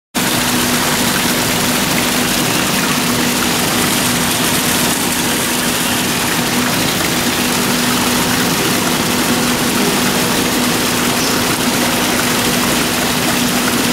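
Steady rushing noise with a constant low hum, unchanging: the ambient sound of an indoor butterfly conservatory.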